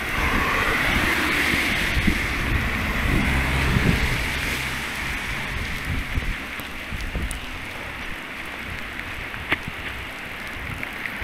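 Steady rain hissing, with wind rumbling on the microphone that is strongest in the first few seconds and then eases; a few sharp ticks, likely drops striking close by, near the end.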